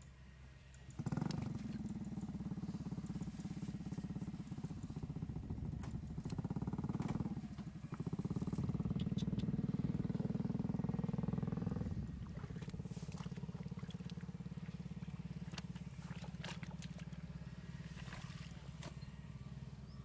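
A small engine running steadily, starting about a second in and loudest in the middle, with a few small splashes and clicks of hands working in muddy water near the end.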